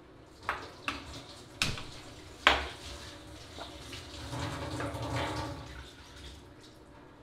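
A hand-held gas lighter clicking four times to light a gas stove burner under a steel milk pot. The fourth click is the loudest. It is followed by a soft rushing sound with a low rumble for about two seconds.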